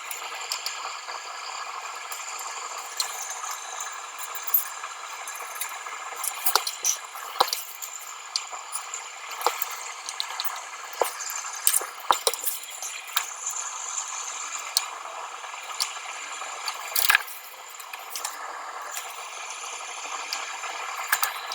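Scattered small clicks, clinks and rattles of screws and metal parts being handled while a car audio amplifier is reassembled, over a steady hiss.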